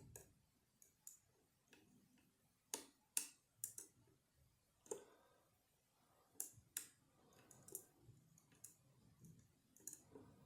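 Faint, irregular metallic clicks of a lever-lock pick and tension tool working the levers of a Gibbons 5-lever sash lock, the levers being nudged up one at a time under light tension.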